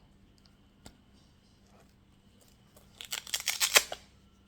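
Small objects of a pocket-knife survival kit being handled: a single sharp click about a second in, then near the end about a second of rapid, scratchy clicking and rustling.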